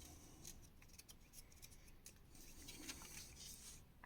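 Near silence with faint, scattered rustles and clicks of paper magazine pages being handled and turned.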